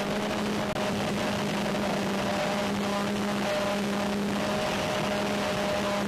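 Twin 1350Kv brushless electric motors and propellers of a Multiplex Twinstar model plane running under power at a steady pitch, over a constant hiss of rushing air.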